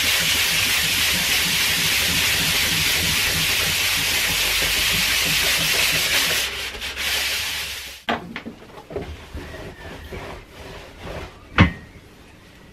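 360-grit wet-and-dry sandpaper wrapped around an MDF block, rubbed back and forth over the spray-lubricated cast-iron deck of a Mazda MX-5 Miata engine block: a steady rasping scrub with a regular rhythm of about three strokes a second, cleaning the deck flat for a head-gasket seal. The sanding stops about eight seconds in, and light knocks and one sharp click follow.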